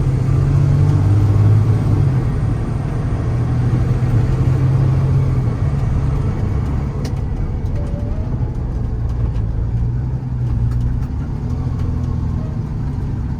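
Paccar PX9 8.9-litre inline-six diesel of a Kenworth T370 truck running while the truck drives, its note shifting a few times.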